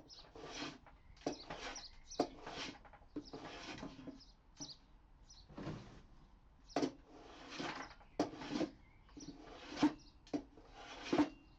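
Hand plane taking repeated strokes across reclaimed pallet-wood boards, about one pass a second, each a short rasping swish of the blade cutting shavings. This is the flattening of a workbench top.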